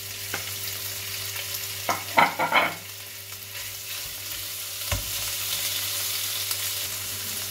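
Diced pork belly sizzling in hot oil in a wok with sautéed onions and garlic, stirred with a wooden spatula, the meat just added for browning. The stirring gets briefly louder about two seconds in, and there is a single knock about five seconds in.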